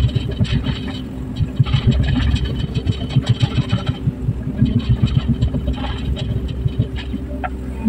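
Excavator's diesel engine running with a fast, low throb, and stretches of higher-pitched mechanical noise coming and going over it, about two and six seconds in.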